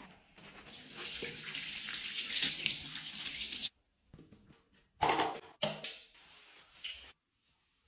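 Water running from a tap into a sink for about three seconds, cutting off abruptly, followed by a few knocks and handling sounds.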